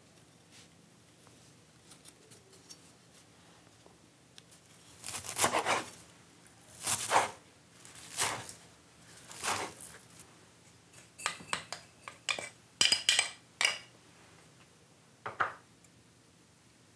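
Chef's knife chopping wild chives on a wooden cutting board: four chops spaced a little over a second apart, then a quicker run of sharp knocks and clicks and one last knock.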